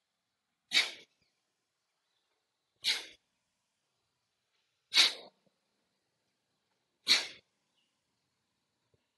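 Kapalabhati breathing: a person's sharp, forceful exhalations through the nose, four in all, one about every two seconds.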